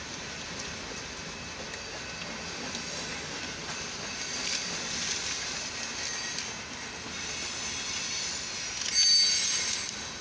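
Long Union Pacific freight train rolling past, heard from inside a car: steady wheel-on-rail noise from the passing cars, with a brief high wheel squeal about nine seconds in.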